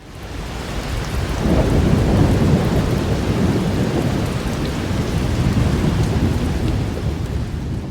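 Heavy low rumbling under a dense, steady hiss, fading in from silence over about a second and a half and then holding loud, like a storm sound effect.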